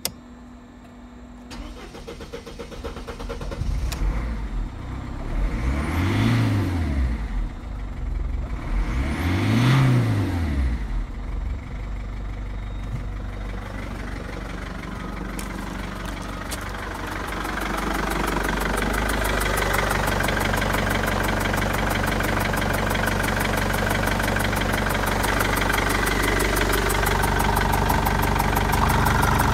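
Mercedes OM611 2.2-litre four-cylinder diesel starting a few seconds in. It is revved up and back down twice, then settles into a steady idle. It sounds louder in the second half, heard from the open engine bay.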